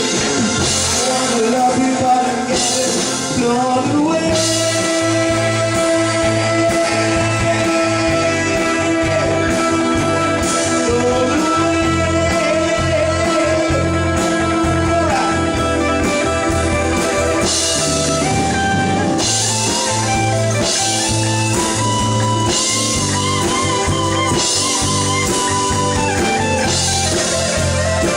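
Rock music led by electric guitar with long held, bending notes over bass and drums.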